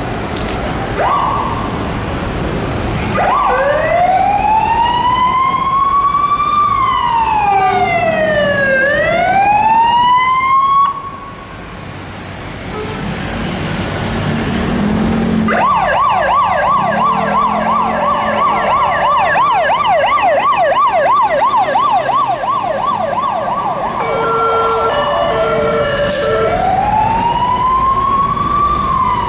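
Emergency vehicle sirens in city traffic: a slow wail rising and falling, a break, then a fast yelp for several seconds. A few short tones follow, then the wail again near the end, from a fire engine coming through.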